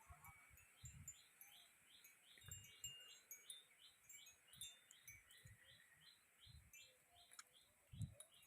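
Near silence with a faint small animal's call: short high chirps that fall in pitch, repeated steadily about three a second, over a few soft low thumps.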